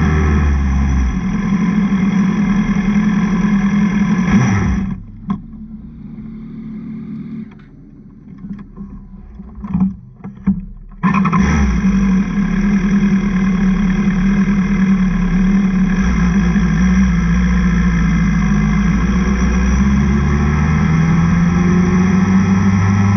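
BMW S1000RR inline-four engine with an Akrapovic exhaust, heard from on board and running hard at high revs. About five seconds in it drops sharply to a much quieter sound with a few short spikes. About eleven seconds in it comes back in at full volume and holds high revs.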